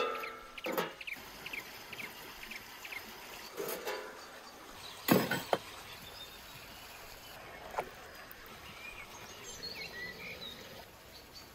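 Kitchen handling sounds across quick cuts: a few sharp knocks, and a louder clatter about five seconds in, as the tray and utensils are handled. Small birds chirp now and then in the background.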